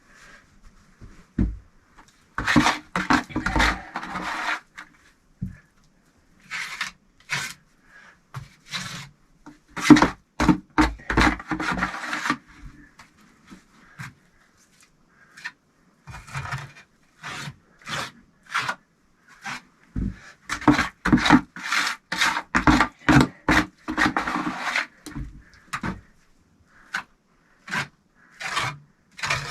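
Bricks and clay mortar being worked while laying a brick stove: repeated bouts of rough scraping and rubbing, broken by short knocks as bricks are set.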